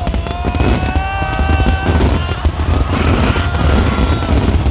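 Fireworks popping and crackling in quick succession over a heavy, steady low rumble, with long held pitched tones running through them.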